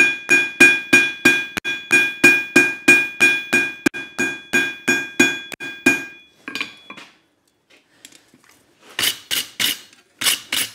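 Hand hammer striking hot steel on an anvil in steady blows, about three a second, each blow ringing from the anvil, as the end of a bar is spread out into a coffee scoop's bowl. The hammering stops about six seconds in, and a few sharp clanks follow near the end.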